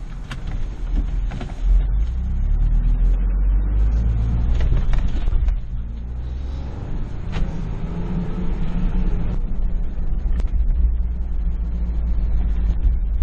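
2021 Ford Bronco heard from inside the cabin while driving on a dirt trail: the engine runs under a low road rumble and rises in pitch as it accelerates, twice, with a brief drop in between. A few short knocks and rattles come from the bumpy track.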